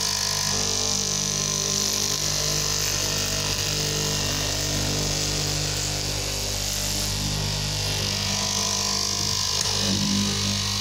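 Electric straight-knife cutting machine running with a steady motor hum as its vertical reciprocating blade cuts through a thick layered stack.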